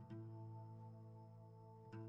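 Quiet background music of slow, plucked notes that ring on. A new note comes in just after the start and another near the end.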